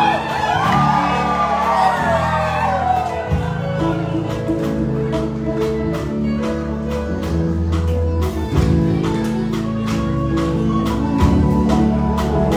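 Live band music with a steady drum beat, bass and guitar. A singer's voice slides up and down over the first few seconds, then the band plays on.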